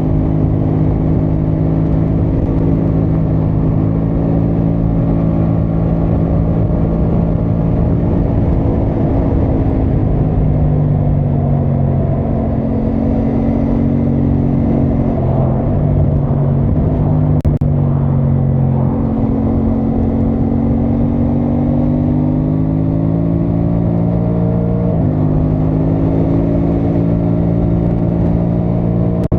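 Aprilia Tuono 660 Factory's parallel-twin engine running under load as the bike is ridden at a steady pace. The revs ease off about ten seconds in, then step between gears in the middle and again with a sudden rise near the end.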